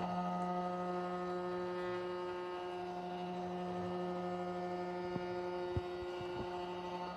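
CNC machine running with a steady, unchanging pitched hum, with a few faint low knocks near the end.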